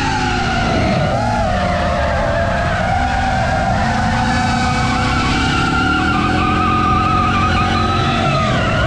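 Drift car sliding through a corner, its tyres squealing with a pitch that wavers up and down over the sound of its engine.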